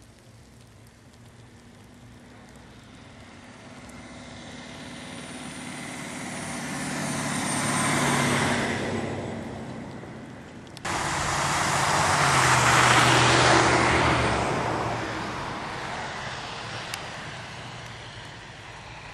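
Cars driving past on a snow-covered street, their tyres hissing on the snow: one swells to a pass and fades, then a second pass cuts in abruptly about eleven seconds in and fades away.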